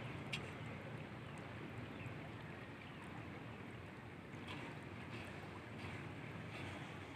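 A cargo barge's engine running steadily under way, heard as a faint low hum, with water and wind noise and a few faint ticks.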